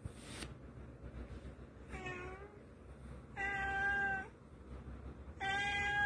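Tabby-and-white domestic cat giving three drawn-out, complaining meows as a finger pokes at its face. The first is shorter and fainter; the last two are louder and longer.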